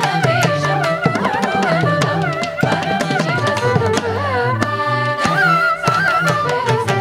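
A group of women's voices singing a Carnatic kriti in unison in raga Mohanam, Adi tala, with gliding ornaments on the held notes. Violin and mridangam accompany them, with drum strokes keeping the beat throughout.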